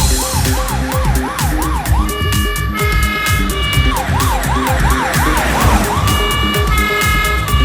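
Electronic police siren from a Bruder toy police Jeep's light-and-sound module: two bursts of about two seconds each, each a fast up-and-down wail of about six sweeps, played over electronic background music with a steady beat.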